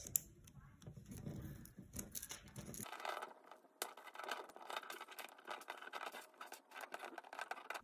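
Plastic pony beads clicking faintly against each other as string is threaded through them and pulled tight on a beaded cuff, with many small irregular clicks and a light rustle of handling.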